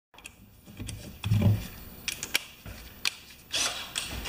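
Metal hand tools handled on a workbench: a dull thump about a second in, then sharp metallic clicks as a ratchet, socket and extension are set down, and a rustle near the end.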